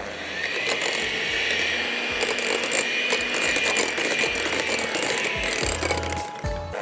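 Electric hand mixer running, its beaters whipping cream and strawberry purée in a glass bowl: a steady motor whine with a brief dip shortly before the end.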